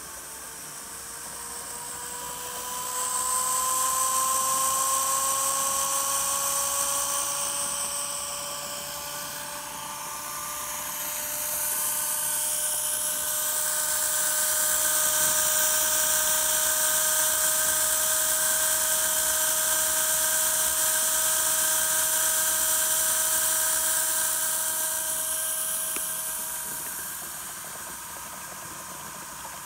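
Mini model turbojet engine running: a high turbine whine that slowly rises in pitch as it spools up, over a strong hiss. It eases off about nine seconds in, comes back up and runs steadily, then dies down near the end.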